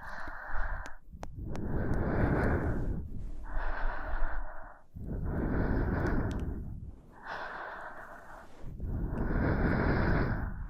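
A woman breathing slowly and evenly right at the microphone, in close ASMR style. There are about six breaths in and out, each one to two seconds long, with brief pauses between them.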